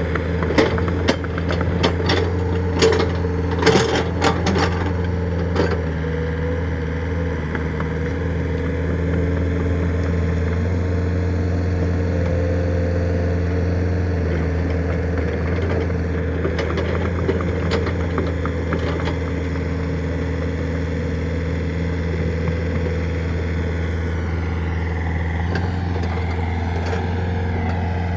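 Excavator engine running steadily, with a series of sharp knocks and clanks in the first few seconds and a few more about two-thirds of the way through.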